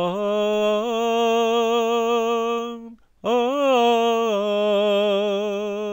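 Unaccompanied solo voice singing a long drawn-out "ah" over two held notes, each nearly three seconds, with a slight vibrato. The second note swells up in pitch at its start, then settles lower.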